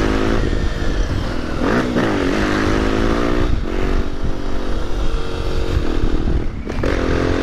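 Honda XR250 Tornado's single-cylinder four-stroke engine through a Belparts aftermarket exhaust, revving hard as the bike is pulled up into a wheelie, its pitch climbing and falling several times with a short break near the end, over low wind rumble.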